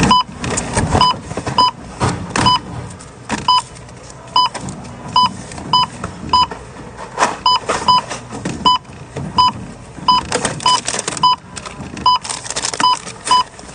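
Checkout barcode scanner beeping as grocery items are passed over it in quick succession: a run of identical short beeps, roughly two a second, over the rustle and knock of the packages being handled.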